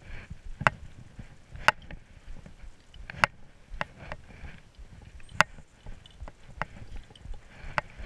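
Ice axes and climbing gear clicking and knocking as a climber moves up a snow slope: sharp clicks at irregular intervals, about seven in eight seconds, with softer noise between.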